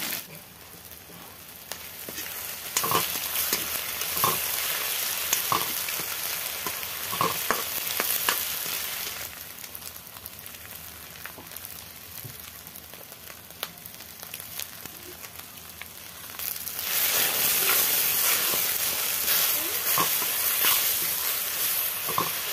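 Scrambled egg, tomato and onion sizzling as they fry in an iron kadai, stirred with a steel spoon that scrapes and knocks against the pan, with a few sharp clinks between about three and eight seconds in. The sizzle dips in the middle and grows louder again near the end.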